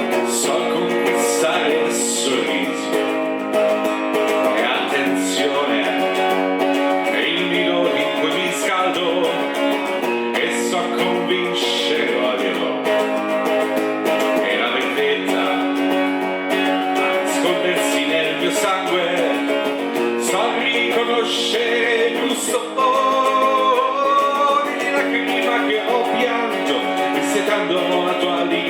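Music: an instrumental passage led by plucked guitar, strummed at times.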